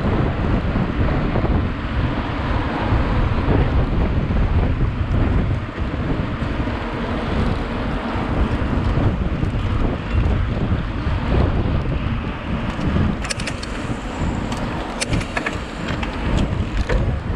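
Wind buffeting the microphone of a mountain bike rider's camera while riding at speed: a steady rushing rumble, with a run of sharp clicks and rattles near the end.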